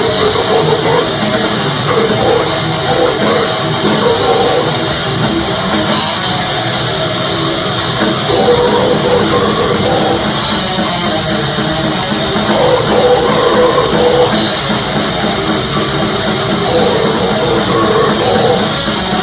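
Death metal band playing live at full volume: heavily distorted guitars over a dense, steady drum kit.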